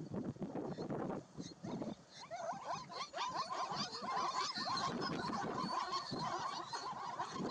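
Many short, high animal calls overlapping, several a second, from the wild dog pack and the zebra herd as the dogs chase the zebras. The calls build up about two seconds in, over the dull thuds of zebras galloping.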